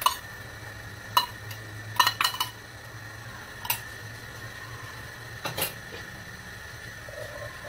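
Metal spoon clinking against a glass bowl as ground chili spice paste is scraped out into a pot. The clinks are spread out, a few at a time, with a cluster about two seconds in, and some ring briefly.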